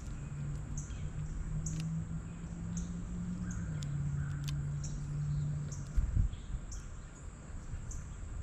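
A small bird's short, high chip call repeats about once a second over a steady low drone. A dull thump comes about six seconds in.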